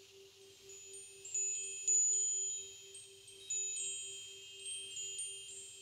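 High, bell-like chimes struck at irregular moments, each note ringing on and fading into the next, the loudest about two seconds in. A faint, steady pulsing low tone runs underneath.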